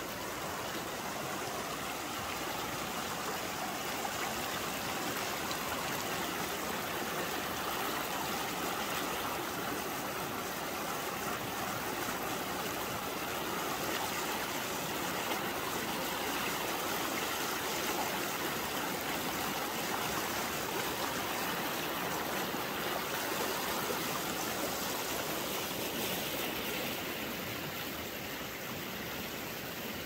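Fast-flowing river water rushing steadily.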